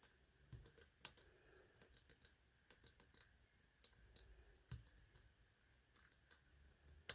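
Faint, irregular metallic clicks of a pick and a cut-down key blank working the levers inside an ERA Big 6 lever padlock as it is picked.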